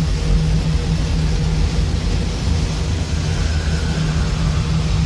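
Dense, droning noise from an experimental noise/breakcore track, with a steady low hum under a rumbling, engine-like wash.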